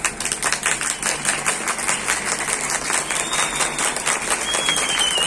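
Crowd applauding: many hands clapping densely and irregularly, starting at once. A thin high wavering tone rises above the clapping near the end.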